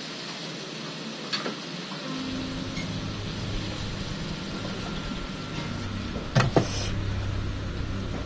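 Small metal repair tools clicking against a phone on a workbench: one sharp click about a second and a half in, then two louder clicks close together after six seconds. A steady hum runs underneath, growing stronger about two seconds in.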